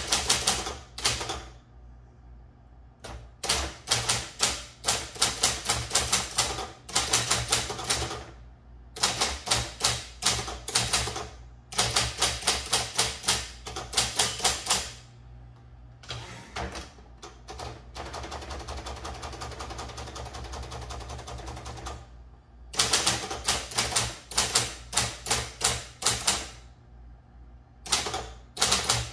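Royal Apollo 10 electric typewriter typing in bursts of quick, evenly spaced keystroke clacks, with short pauses between bursts. About two-thirds of the way through the clacking gives way to a steady whirr lasting a few seconds before the typing resumes.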